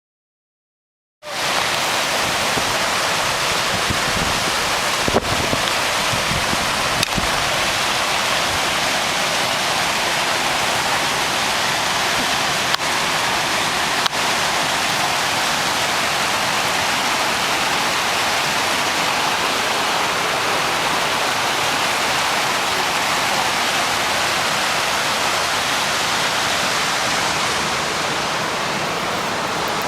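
Steady rush of fast water tumbling over rocks, a river or falls, cutting in suddenly about a second in after silence, with a few faint clicks.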